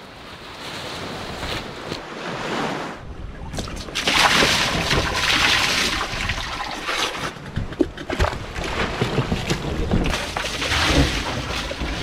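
Wind and sea rushing past a sailing yacht under way, with seawater from a bucket splashing over a person near the end.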